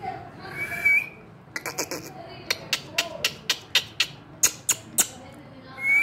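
Indian ringneck parrot giving a short whistled call about a second in, with low talking-like babble. This is followed by a run of sharp clicks, about three to four a second, and another short whistle at the very end.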